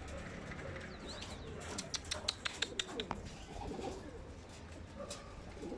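Domestic pigeons cooing softly, with a quick run of sharp clicks about two to three seconds in.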